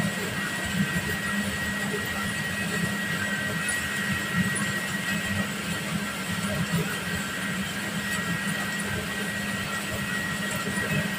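Steady machine noise of a sweater knitting floor: computerized flat-bed jacquard knitting machines running nearby, a constant low hum with a steady high whine over it and faint irregular clatter.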